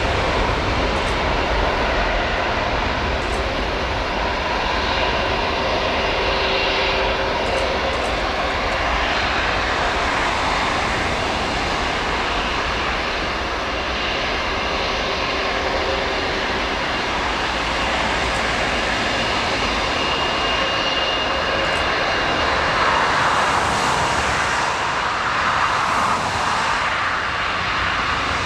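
Airbus A380 jet engines running: a loud, steady rushing noise with a faint high whine, swelling briefly near the end.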